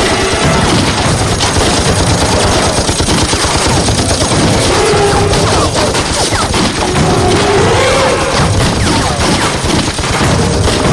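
Sustained, dense machine-gun and rifle fire from a battle sound track, the shots following each other without pause.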